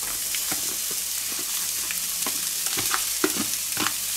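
Diced bacon and onion sizzling in a frying pan, with a steady hiss and a wooden spatula knocking and scraping against the pan as the bacon is pushed in and stirred; the knocks come thicker in the second half.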